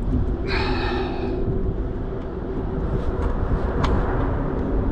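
A steady low background rumble with a faint steady hum running through it, and a short higher-pitched sound about half a second in.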